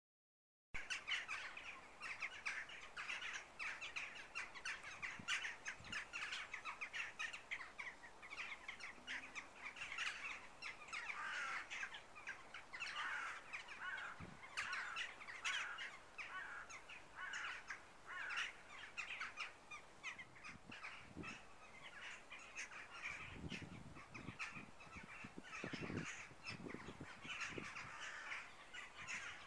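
Many crows calling and cawing at once, a continuous overlapping chorus of short calls. A run of low thumps comes in near the end.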